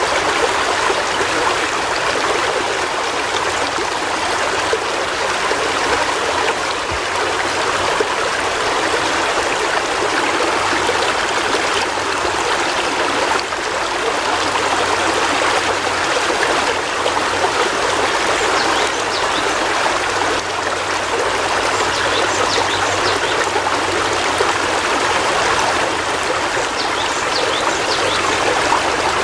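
River water flowing steadily over rocks: an even, continuous rush and babble.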